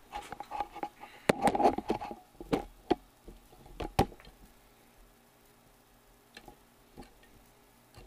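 Handling noise from the camera being carried and set down in a new spot: a cluster of sharp knocks and clatter in the first few seconds, then a few faint ticks.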